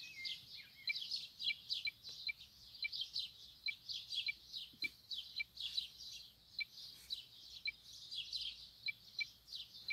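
Small birds chirping quietly and continuously, with quick high chirps coming two or three times a second.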